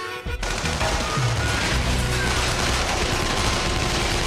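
Sustained rapid gunfire, a long fusillade from a TV drama's soundtrack, starting about half a second in, over a music score.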